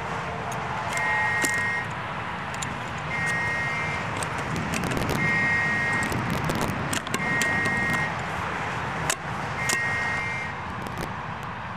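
Heavy cutters snipping through the rabbit-ear antennas of a Linksys WRT54GL router, a few sharp clicks and snaps. Behind it, a high electronic beep of just under a second repeats about every two seconds.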